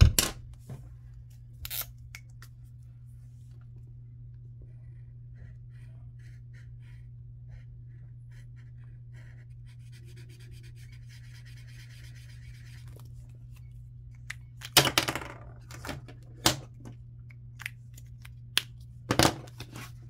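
A felt-tip Sharpie marker scratching faintly on a paper card as a box is coloured in, after a click near the start, probably the cap. Later come a few louder paper rustles and clicks as the card is handled, over a steady low hum.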